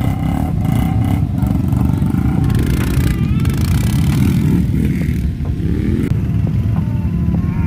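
ATV engines running close by, a loud, steady rumble.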